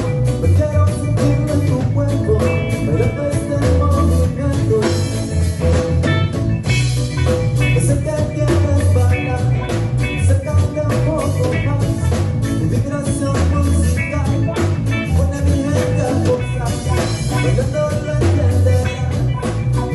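Band music in a ska style: bass, drum kit with a steady beat, guitar and other pitched instruments playing together.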